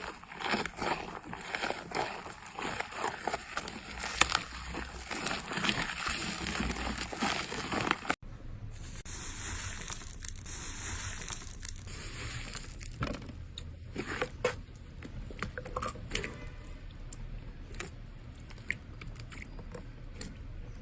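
Hands squeezing and pressing slime, with dense, fast crackling and popping. About eight seconds in it cuts abruptly to a softer clip of sparser squishes and crackles.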